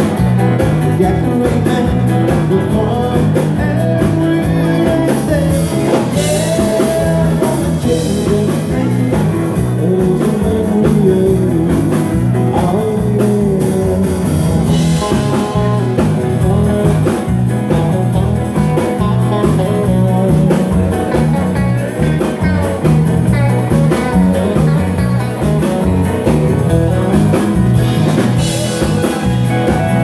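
Live dance band playing up-tempo music with a steady beat and a melody line over it.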